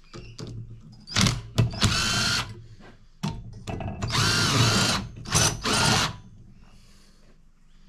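Cordless power driver with a socket running in several short bursts, its motor whine rising and falling, as it undoes the bolts on top of a refrigerator compressor. Between the bursts there is light clinking of metal parts.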